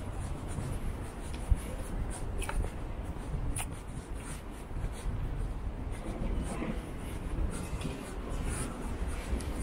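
Scratchy rustling and scuffing close to a handheld camera's microphone as it is carried along a city sidewalk, over a low street rumble, with one sharp knock about a second and a half in.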